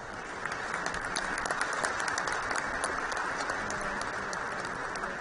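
Large theatre audience applauding, a dense, steady clatter of many hands clapping that swells about half a second in.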